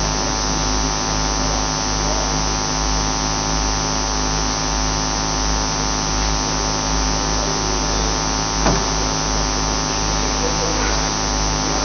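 Steady electrical hum with a constant hiss, a mains-type hum on the audio feed, with no speech; one brief click about nine seconds in.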